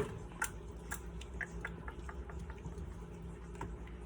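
Wooden spoon stirring macaroni in water in a glass bowl: wet squishing and sloshing with irregular light clicks of the spoon and pasta against the glass.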